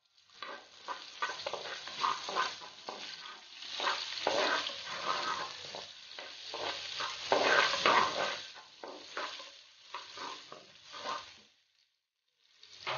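Sliced onions frying and sizzling in hot ghee in an earthenware clay pot, stirred and scraped against the pot with a wooden spatula in many short strokes. This is the first stage of frying the onions with the whole spices for a biryani base. The sound stops about a second and a half before the end, with one short scrape at the very end.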